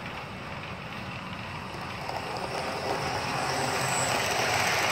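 Model freight train running on the layout track, its wheels rolling over the rails, growing louder from about halfway through as the hopper cars come close and pass by.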